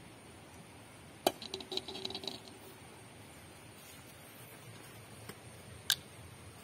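A metal kadai is set down on rock with a sharp clank about a second in, followed by about a second of rattling and ringing. Near the end comes a single sharp click as a lid is taken off a small container and put down on the stone.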